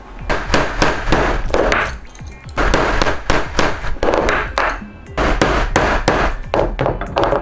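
Background music over repeated sharp taps and knocks of leather-craft work: metal tools and brass rivet hardware knocking on a wooden workbench while a leather belt strap is being riveted.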